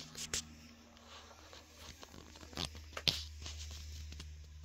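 Faint handling noise as the sneakers and camera are moved about on a fabric surface: a few short clicks and rustles, the loudest about three seconds in, over a low steady hum.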